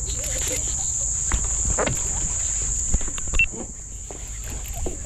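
Steady high-pitched insect chorus, with wind rumbling on the microphone and a few sharp knocks.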